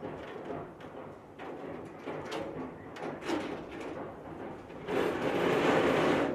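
A pine curtain rod with small screw hooks knocking and scraping as it is hung on stainless steel wire ropes, then a louder sustained sliding rush for the last second and a half.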